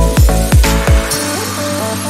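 Electronic background music: a beat of deep kicks that drop in pitch runs until a little past halfway, then gives way to a steady bass line with short synth notes, some sliding upward.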